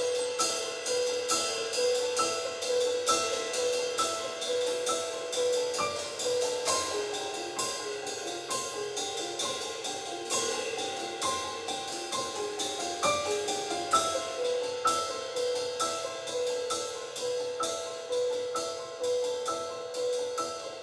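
Jazz-fusion ensemble playing quietly: a repeating figure of short, bell-like pitched notes over steady cymbal strokes from the drum kit.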